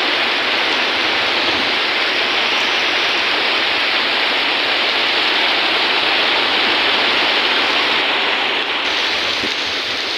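Heavy rain falling steadily, a dense, even hiss of countless drops, easing slightly near the end.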